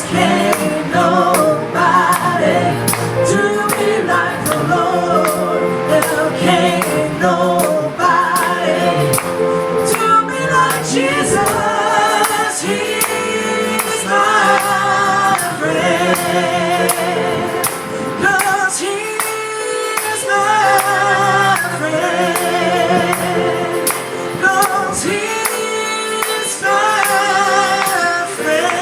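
Gospel worship music: singing voices with heavy vibrato over instrumental accompaniment.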